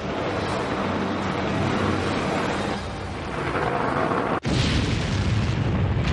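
Sound effect of a nuclear warhead striking its target: a dense rushing noise swells, cuts out for an instant about four and a half seconds in, then gives way to a heavy explosion rumble.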